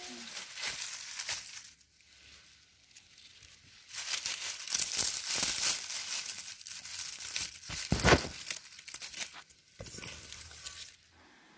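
Tomato plants' leaves and stems rustling and crackling as tomatoes are picked by hand, in irregular bursts, with a louder knock about eight seconds in.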